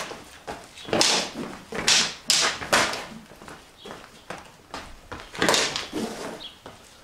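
Sparring sticks clacking and striking in an exchange: a sharp hit about a second in, a quick run of three about two seconds in, and another after five seconds, with feet scuffing on concrete.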